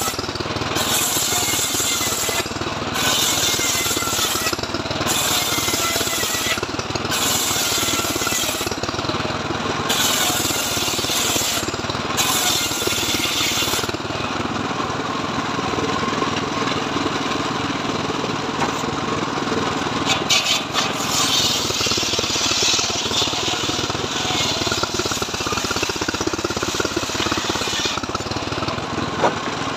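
Homemade engine-driven sliding-table circular saw running steadily while ripping mahogany boards. The high cutting hiss comes and goes about every two seconds in the first half as each pass goes through, then runs lighter in the second half.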